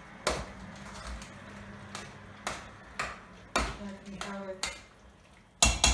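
A spoon stirring a thick stew in a stainless steel pot, knocking and clinking against the pot's side about six times at uneven intervals, the loudest knock near the end.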